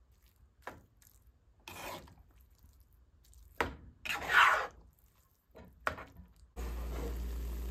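A few short scraping and rubbing sounds of eating utensils on a dish of ramen noodles, with one longer, louder scrape about four seconds in. Near the end a steady hiss with a low hum starts abruptly.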